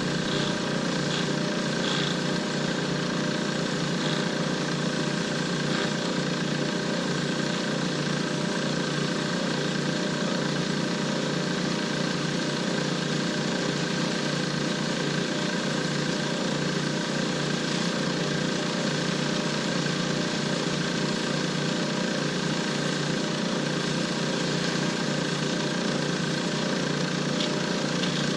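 Lathe motor running steadily with an even hum while a cast shifter-knob blank spins, with a few faint ticks near the start and the end.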